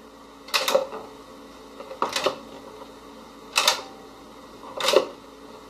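Four short plastic clicks and scrapes, about one every second and a half, as toner cartridges are slid partly out of and back into their slots in a Samsung CLP-325W colour laser printer.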